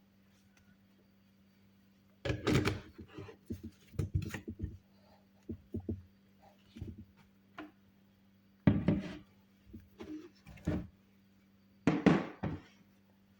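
Kitchen items being handled: irregular knocks and clunks in clusters with quiet gaps between. The loudest come about two seconds in, around nine seconds and near twelve seconds. No blender motor is running.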